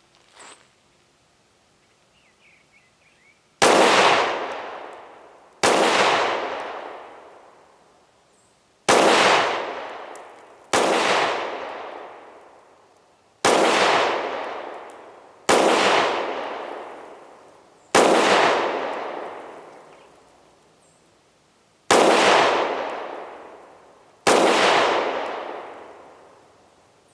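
Kel-Tec PR-57 pistol in 5.7x28mm firing nine single shots at an unhurried, uneven pace of one every two to four seconds, each crack followed by a long fading echo.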